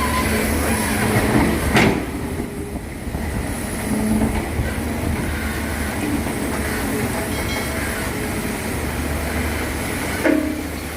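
Excavator's diesel engine running steadily under load, with sharp metallic knocks about two seconds in and again near the end.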